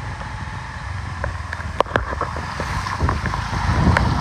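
Wind buffeting the microphone as a low, uneven rumble, with scattered sharp clicks, the loudest about two seconds in.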